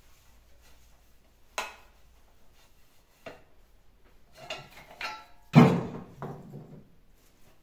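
Kitchen things being handled: a knock, then a few clinks with a short ring, and a louder ringing clatter about five and a half seconds in that dies away over about a second.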